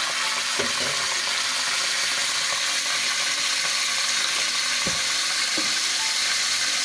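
Chili sauce sizzling and bubbling in hot oil with chopped garlic in a wok, a steady frying hiss, stirred with a plastic spatula.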